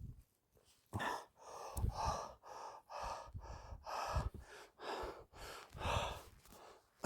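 A woman breathing in short, ragged gasps, about one or two a second, starting about a second in. She is freezing in the snow.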